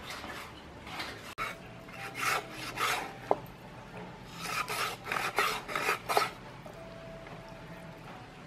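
Cleaver sawing through a slab of raw pork on a wooden chopping board, in short rasping back-and-forth strokes that come in three runs, with one sharp click about three seconds in.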